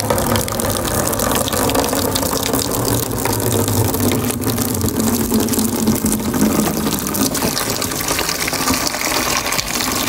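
Water running from a tap into a plastic bucket, a steady gushing rush as the bucket fills.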